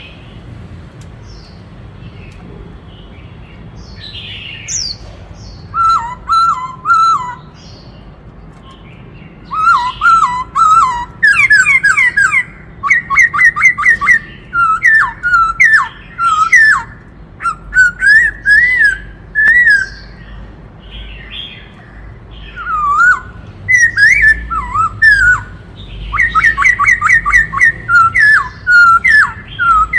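Black-throated laughingthrush singing: loud, quickly repeated whistled phrases, mostly series of sliding notes, beginning a few seconds in and running in long bouts with a short lull a little after two-thirds of the way through.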